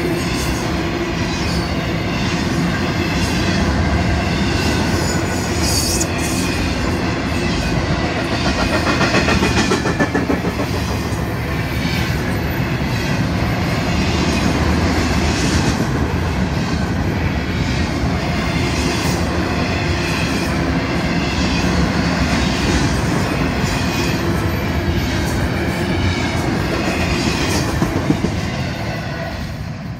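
Florida East Coast Railway freight cars (autoracks and intermodal well cars) rolling past at speed: a steady loud rumble of steel wheels on rail with a regular clickety-clack. The sound falls away near the end.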